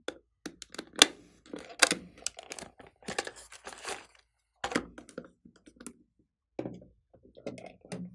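Hard plastic case being handled and opened: a quick run of clicks, knocks and clatters, with the sharpest snaps about one and two seconds in, then a lipstick tube being taken out and handled.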